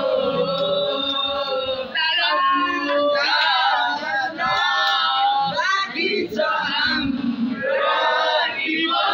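A group of boys singing together loudly in a ragged chorus, holding long notes with short breaks between phrases.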